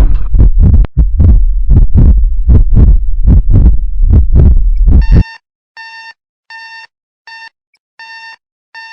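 Heartbeat sound effect, loud and fast at about three deep thumps a second, that cuts off suddenly about five seconds in. Then comes a series of short electronic beeps, about one every two-thirds of a second, with silence between them.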